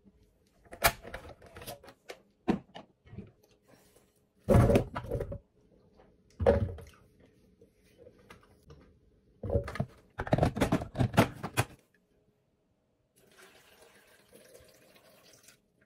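Pineapple chunks dropped and pressed into a Ninja blender's plastic jar: a run of irregular thuds and clicks, the heaviest about four and a half, six and a half and ten to eleven seconds in. A faint hiss follows near the end.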